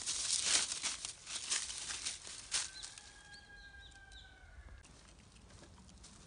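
Dry fallen leaves rustling and crackling as a Jindo dog steps and noses through them, busiest in the first couple of seconds. About two and a half seconds in, a faint steady whistling tone with a few chirps above it lasts about two seconds.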